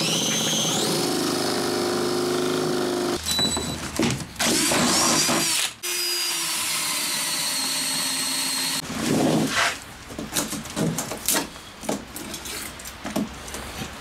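Power drill with a long extension bit boring through wooden wall studs. It spins up at the start and runs steadily in three stretches with brief pauses, then stops about nine seconds in. Scattered knocks and handling noises follow.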